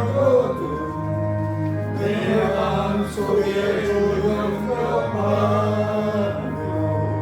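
Church congregation singing a hymn with instrumental accompaniment.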